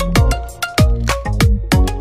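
Background music with a steady dance beat: sharp percussion hits, deep bass notes that drop in pitch on each beat, and a short-note melody above.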